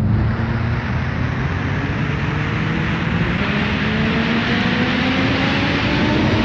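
Synthesized intro riser sound effect: a loud, dense rushing noise over a low hum, with tones that climb slowly and steadily in pitch.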